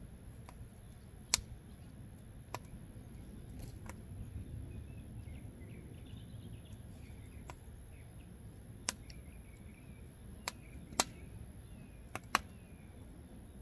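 Wood fire crackling in the firebox of an offset barrel smoker, with about eight sharp pops at irregular intervals, the loudest a little over a second in and several more near the end, over a low steady rumble.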